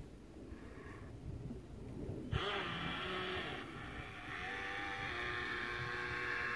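RC jet boat's motor and water-jet drive starting up suddenly about two seconds in and then running steadily with a whine.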